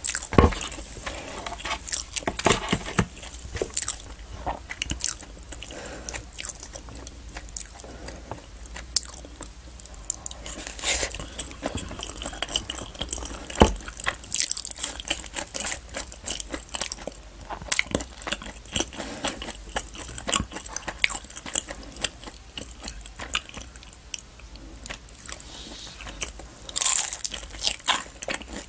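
Close-miked eating sounds: chewing and biting naan, curry and samosa, with sticky mouth clicks and irregular crisp crunches, a cluster of loud crunchy bites near the end.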